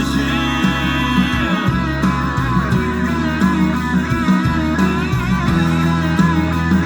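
Instrumental break of a song: a lead guitar plays a melody that bends and wavers in pitch over steady bass and rhythm guitar.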